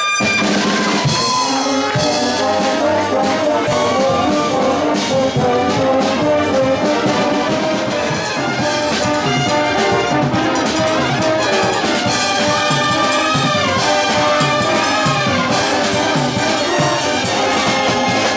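Drum corps minicorps playing a tune: trumpets and a sousaphone-style bass horn over a drum kit, cymbals and congas, with a steady run of drum strikes throughout.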